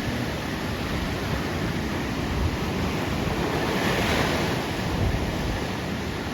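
Ocean waves washing onto a beach, with one wave swelling louder about four seconds in, and wind on the microphone.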